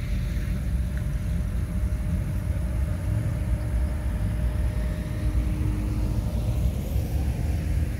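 Classic cars driving slowly past in a procession, their engines making a steady low rumble.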